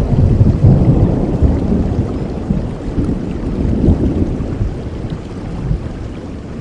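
Thunder rumbling over steady rain, loudest at the start and dying away toward the end.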